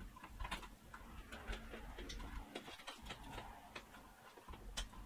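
Faint scattered clicks and light rattling as 8-pin power cable plugs are handled and pushed into a graphics card's power sockets, with one sharper click near the end.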